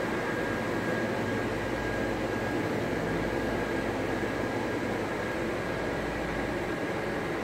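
Steady whir of the small electric blower fans that keep inflatable Halloween decorations up, with a faint steady hum mixed in.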